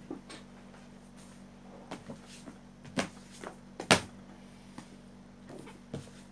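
Books being handled on a desk: a few scattered knocks and soft rustles as books are shifted and one is lifted from the pile, the loudest knocks about three and four seconds in.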